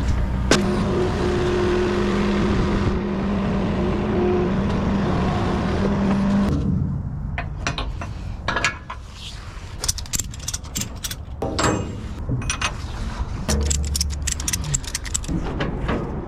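An engine running steadily, which cuts out about six and a half seconds in, followed by a string of sharp metallic clicks and clanks.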